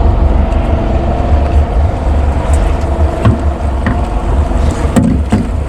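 Boat's engine running slowly in gear, a steady low rumble, with a few short knocks about three seconds in and near the end.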